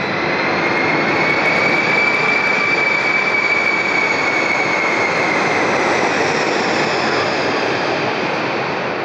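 Audience applauding steadily, with a thin high tone running through it.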